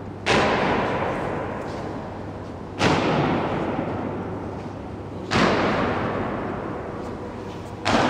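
Honour guard's slow ceremonial march: the soldiers' boots stamp in unison on the stone floor about every two and a half seconds. Each stamp echoes for a long time in the large stone hall.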